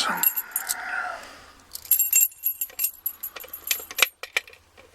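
Brass padlock clinking and jingling against metal as it is handled and clamped into a vise. Sharp ringing clinks come about two seconds in, followed by scattered lighter clicks.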